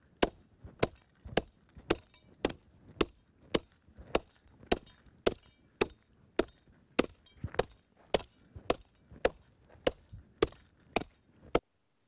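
Hand tamper's steel plate striking damp 3/4-inch gravel in the bottom of a footing trench, a sharp thud about twice a second in a steady rhythm, compacting the loose gravel.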